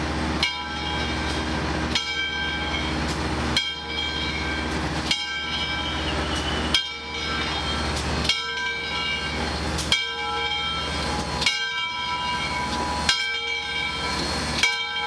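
The bell of Southern Railway 630, a 2-8-0 steam locomotive, clanging once about every second and a half, each stroke ringing on and fading, as the locomotive rolls slowly into the station. A steady low rumble from the moving train runs underneath.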